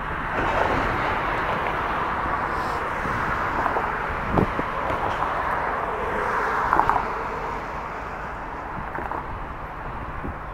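Steady outdoor rumble of distant traffic and rail-yard activity, with wind on the microphone. A single short knock sounds about four and a half seconds in.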